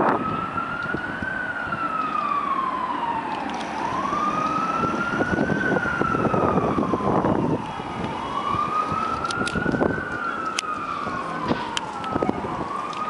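Emergency vehicle siren wailing, rising and falling slowly, about every four seconds, over the rumble and clatter of a subway train on elevated track.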